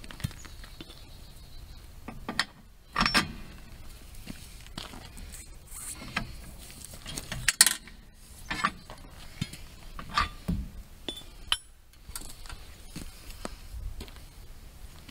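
Metal clinks and clanks from a speed dolly and its lever bar being worked under a car's wheel: irregular separate knocks, the loudest about seven and a half seconds in, with others about three, eight and a half and ten seconds in.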